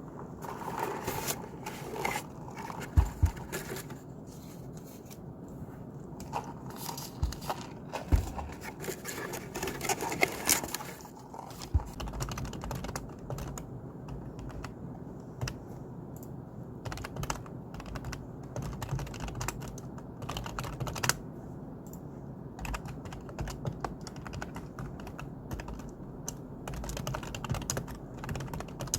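Typing on a computer keyboard: a steady, irregular run of key clicks, with a few louder knocks.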